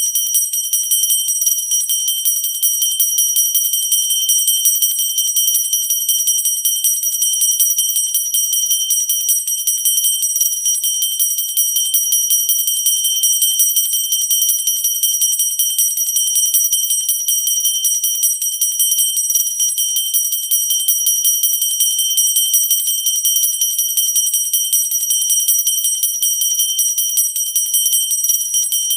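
Pooja hand bell rung steadily and fast, its clapper striking over and over so the high ringing tones never die away.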